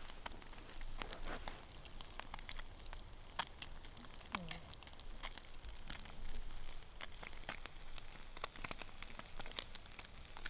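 Greenling with garlic and chili sizzling over hot campfire coals, with scattered crackles and pops from the fire.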